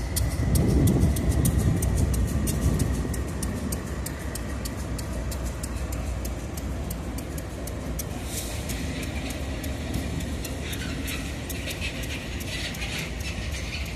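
Freight diesel locomotives moving slowly through a rail yard: a deep engine rumble, loudest early on, with rapid, evenly spaced clicking from the wheels on the track. About eight seconds in, a higher hissing screech of wheels on rail joins in.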